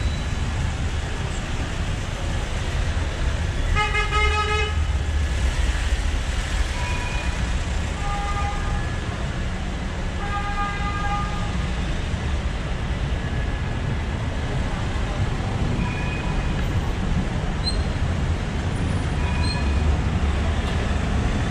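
Street traffic with a steady low rumble and car horns honking several times, the clearest honk about four seconds in.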